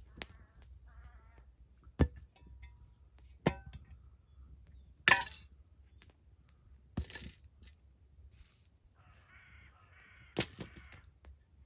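A bird calling in short repeated calls near the start and again near the end, with five sharp cracks or knocks spaced a second or two apart, the loudest about halfway through.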